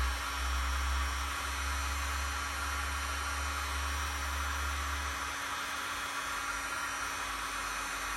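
Electric heat gun blowing steadily with a constant hum, shrinking heat-shrink tubing over a soldered wire splice. A low rumble under it drops away about five seconds in.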